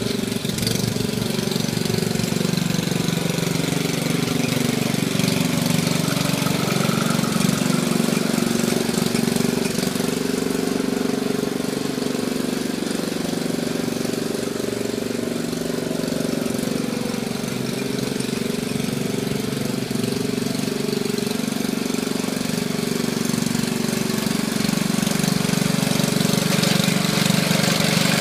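Briggs & Stratton Model 8 single-cylinder engine on a 1950s David Bradley walk-behind tractor, running continuously while the tractor is driven along, its pitch wavering slightly. It gets a little louder near the end as the tractor comes up close.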